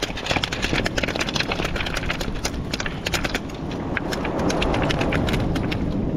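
Beach pebbles clicking and clattering in quick, irregular knocks as a caught flounder is handled and shifted about on them.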